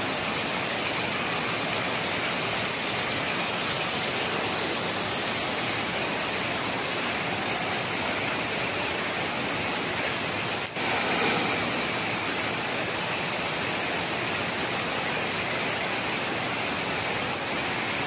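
Rainwater rushing steadily over a pond's overflow weir in a broad sheet, an even rushing hiss with a momentary break about halfway through.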